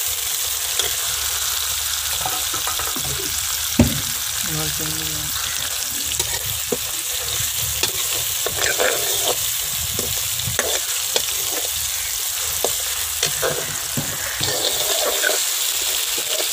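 Onion, tomato and green chillies sizzling in hot ghee in a metal kadai, stirred with a steel ladle that scrapes and clicks against the pan. There is one sharp knock of the ladle about four seconds in.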